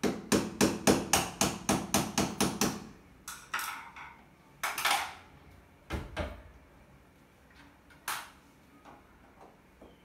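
About eleven sharp knocks in quick succession, about four a second, for nearly three seconds, then a few scattered single knocks: a tool tapping on the washing machine's metal parts as its heating element is worked loose and replaced.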